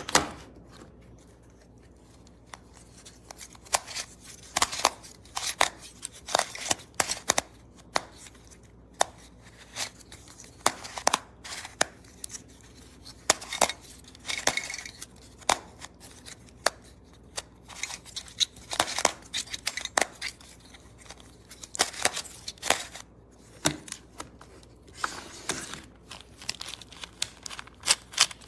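Plastic speed cube being turned by hand: irregular sharp clicks and snaps of the layers, sometimes in quick flurries of turns with short pauses between.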